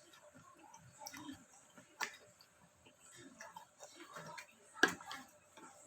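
Close-up chewing of mango: soft, wet mouth sounds and small crackles, with a couple of sharp clicks, the loudest just before the end.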